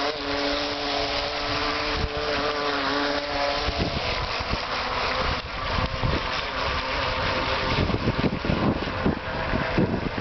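Small electric motor of a toy RC speed boat running flat out, a steady whine that fades about four seconds in as the boat draws away. Wind then buffets the microphone.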